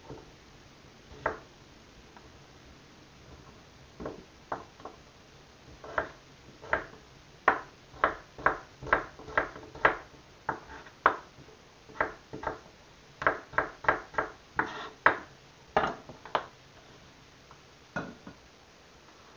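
Chef's knife dicing a potato on a wooden cutting board: a series of sharp knocks as the blade hits the board, few at first and coming about two a second in the middle stretch.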